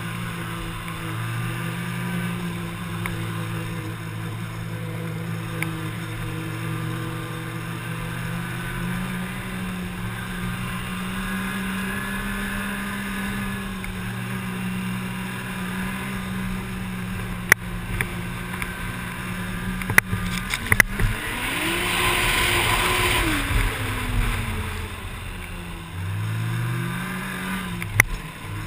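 Arctic Cat T660 four-stroke snowmobile engine running at a steady cruise. About two-thirds of the way in it revs up and eases back, with a rush of hiss over it. A few sharp knocks come in the second half, and the engine climbs in pitch again near the end.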